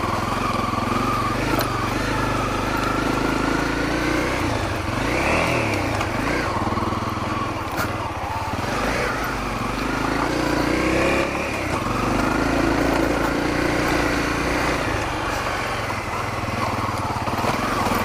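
Honda CRF250L single-cylinder four-stroke dirt bike engine under way off-road, its revs rising and falling repeatedly as the rider works the throttle.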